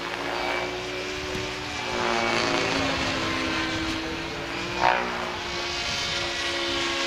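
Henseleit TDR radio-controlled helicopter flying overhead: a steady whine of motor and rotor in several tones. About five seconds in comes one short, loud rise and fall in pitch.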